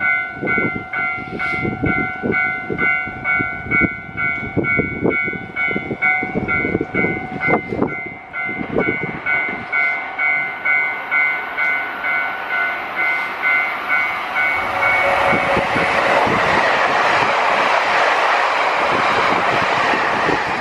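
Japanese level-crossing alarm bell clanging in a rapid, even rhythm, with strong gusty wind buffeting the microphone. About 15 seconds in the bell is covered by a loud, steady rushing noise as a train passes.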